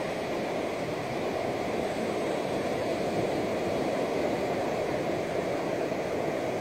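Ocean surf: low waves breaking and washing up the shore, a steady rushing wash that swells a little midway.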